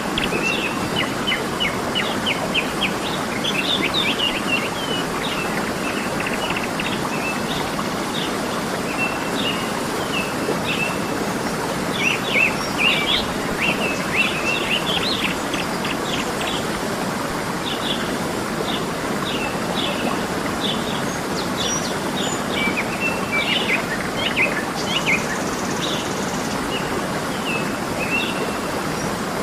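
Waterfall rushing steadily, with many birds chirping and trilling over it throughout.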